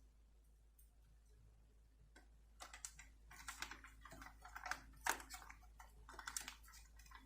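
Small parts of a diecast model car clicking and tapping as they are handled and fitted together: faint, irregular light clicks that start a couple of seconds in, with the sharpest one just past the middle.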